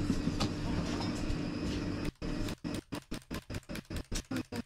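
Shop room tone with a faint steady hum. About two seconds in, the audio starts breaking up: the whole sound cuts out and comes back several times a second, a stuttering dropout in the streamed sound.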